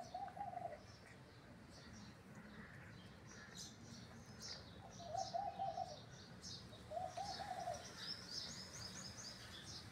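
Small birds chirping again and again, with three short, low, wavering coos, one at the start and two more about five and seven seconds in.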